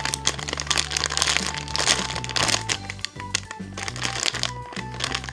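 Background music with a steady bass line, over a run of crinkling, crackling handling noises from a foam squishy toy being squeezed.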